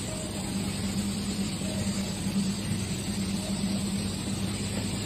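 A vehicle's engine running steadily with a constant low hum.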